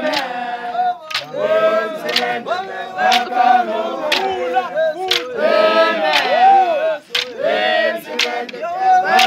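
A crowd of men and women singing together in chorus, with sharp beats cutting through about once a second.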